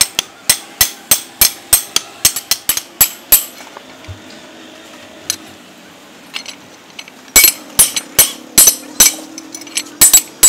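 Hand hammer striking a leaf-spring steel cleaver blade on an anvil block: a quick, even run of sharp metallic blows about three a second. It breaks off for a few seconds midway, with only a few light taps, then resumes louder.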